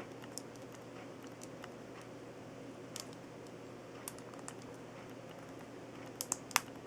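Faint scattered clicks and taps of plastic model-kit parts being handled and fitted together, with a few louder clicks near the end.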